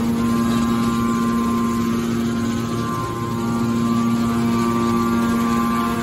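Hydraulic metal baler's power unit, an electric motor driving the hydraulic pump, running with a steady hum.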